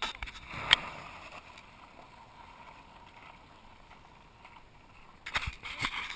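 Airsoft fire: one sharp, loud crack about a second in, then a quick cluster of cracks near the end.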